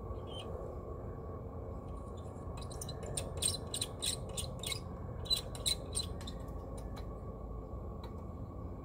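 Lit Coleman pressure lantern burning with a steady hiss, with a quick run of sharp clicks, about three a second, in the middle.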